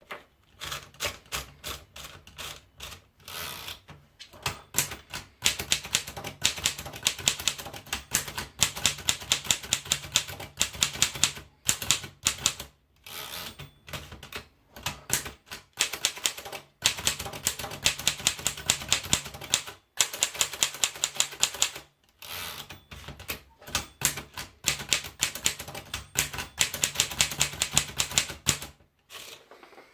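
Remington portable manual typewriter being typed on: quick runs of sharp keystroke clacks, with a few short pauses between runs.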